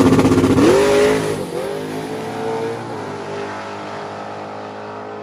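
Fox-body Ford Mustang drag car launching hard down the strip: engine at high revs, pitch climbing, dropping at a gear change about a second and a half in, then climbing again as the sound fades with the car running away from the line.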